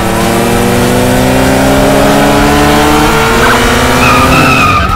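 Car engine sound effect accelerating, its pitch climbing steadily for about three seconds, with a high squeal in the last second.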